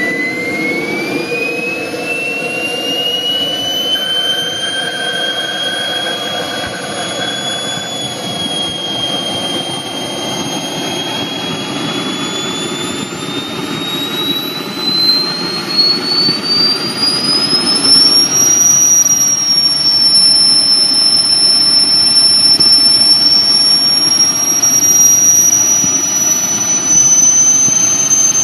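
Model gas-turbine engine of a radio-controlled F-15 jet spooling up on the ground. A high whine climbs in pitch and levels off, then climbs again about halfway through as the rushing noise gets louder. It settles into a steady, higher whine.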